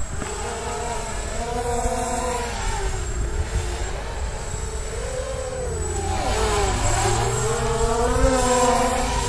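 Small FPV hexacopter with six 1806 2280 kV brushless motors in flight, its motor-and-propeller whine rising and falling in pitch, with a deep dip and climb back up around two-thirds of the way through.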